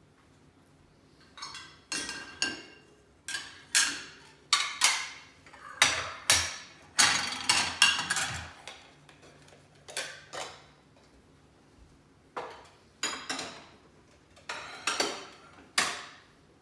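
Clean dishes and cutlery clinking and clattering as they are lifted out of a dishwasher and set down: a string of short knocks with a ringing tail, some coming in quick clusters.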